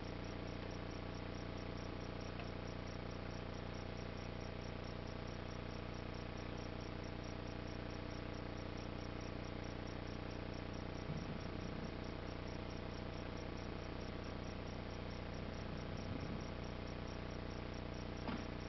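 Steady electrical hum and hiss from a sound system, with a faint, fast, regular high-pitched pulsing on top. A couple of faint brief soft sounds come about eleven and sixteen seconds in.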